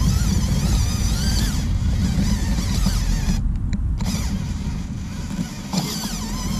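Electric motors and gearboxes of a Huina 1580 RC excavator whining under load, their pitch wavering as the arm and bucket strain to lift a big boulder out of the ground. The whine stops for about half a second midway, then starts again.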